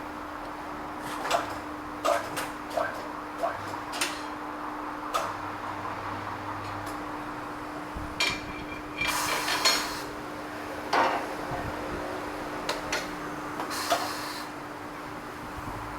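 Irregular metal clanks and knocks of tyre-changing tools working old tyres off steel wheel rims, with two short hisses of air and a steady machine hum underneath.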